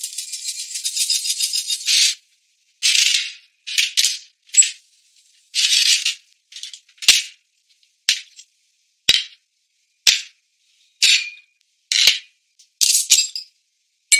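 Shaker or rattle percussion in background music: a two-second shake, then short dry shakes about once a second with silence between.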